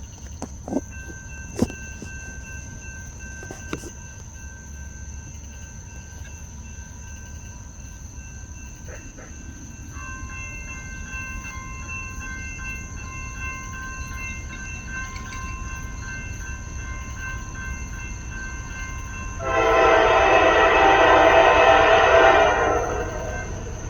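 An approaching train's locomotive horn sounds one long, loud chord of about three and a half seconds near the end, over a low steady rumble. There are a few sharp clicks near the start.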